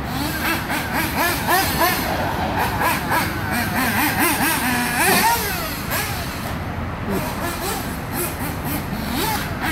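Mugen MBX6R 1/8-scale nitro RC buggy's small glow engine revving up and down again and again as it is driven, its high buzzing pitch rising and falling with the throttle.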